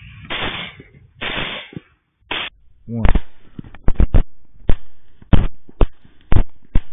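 A rapid volley of rifle shots, about ten sharp, loud cracks in roughly four seconds, starting about three seconds in.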